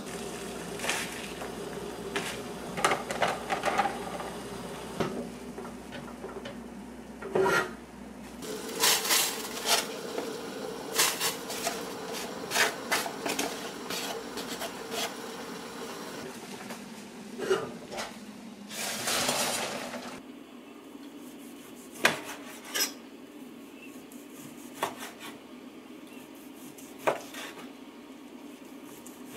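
Kitchen clatter of a stainless steel pot, lid and utensils being handled, with many sharp knocks close together. In the last third it thins out to a few separate knocks of a knife on a wooden cutting board.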